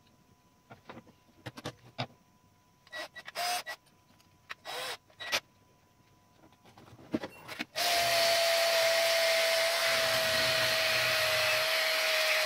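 A few clicks and two short bursts of a small electric power tool, then the tool runs steadily for about five seconds with a steady whine that sinks slightly in pitch.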